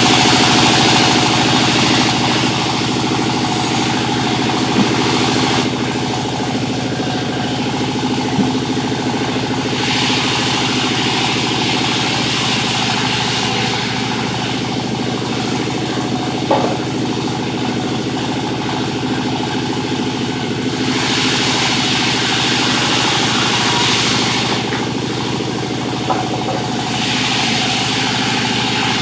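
Sawmill machinery running steadily with an even engine drone. A brighter high hiss swells and fades several times, around the start, about ten seconds in, and twice more in the last third.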